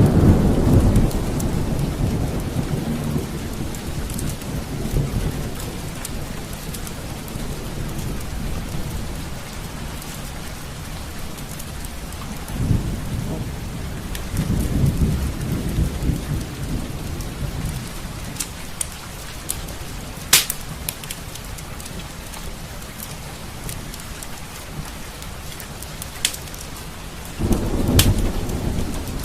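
Steady rain with low rolling thunder: a rumble fading over the first few seconds, another in the middle, and one more near the end. A few sharp crackles of a fireplace fire stand out in the second half.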